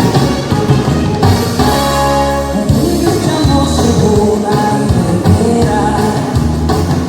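A song with singing over instruments, played loud and continuous.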